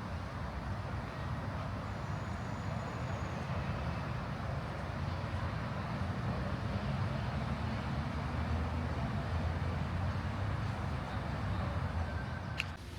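Steady low rumble of city traffic, swelling slightly in the second half, with a single sharp click near the end.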